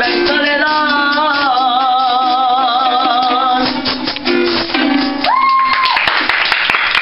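A boy sings a solo with vibrato over strummed Venezuelan cuatros, rising into a high held note that ends the song about five seconds in. Clapping and applause break out right after it.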